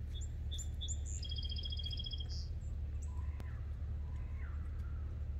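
Songbirds calling: a rapid trill of evenly repeated high notes lasting about a second near the start, short calls before it and lower calls in the second half. A steady low rumble runs underneath.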